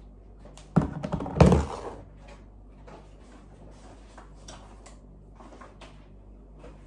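Plastic supplement tubs knocked down onto a kitchen countertop, loudest about a second in, followed by faint scattered clicks and rustling as items are handled and taken out of a bag.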